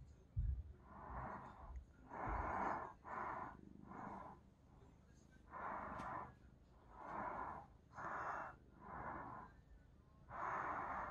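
A person snoring in sleep: a run of about nine snoring breaths, roughly one a second with short gaps. Two low thumps come about half a second in and at about two seconds.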